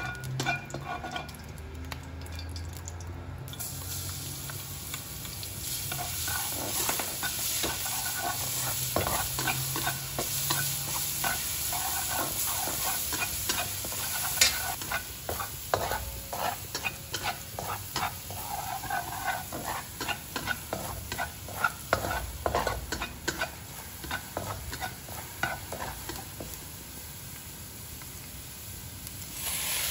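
Minced garlic sizzling in hot lard in a stainless steel wok, stirred with a spatula that scrapes and taps against the pan. The sizzle grows louder a few seconds in.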